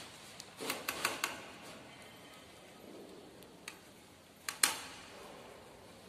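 A cake knife clicking against a serving plate as cake slices are lifted onto it. There is a quick run of four or five sharp clicks about a second in, a single click a little past halfway, and a louder pair near the end.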